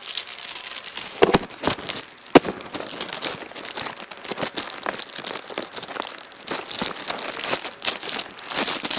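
Plastic packaging crinkling and rustling while being handled, with two sharper knocks a little over a second and about two and a half seconds in.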